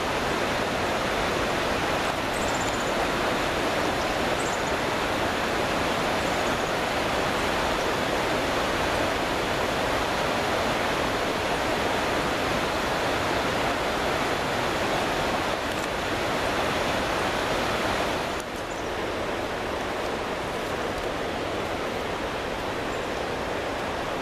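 Steady rushing of a mountain creek's running water, dropping a little in level about eighteen seconds in.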